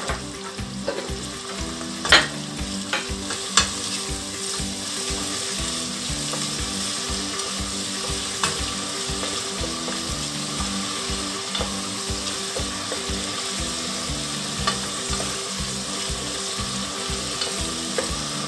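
Chopped onion and green onions sizzling in hot olive oil in a stainless steel pot, stirred with a wooden spoon that knocks against the pot a few times, most sharply near the start and about two and three and a half seconds in.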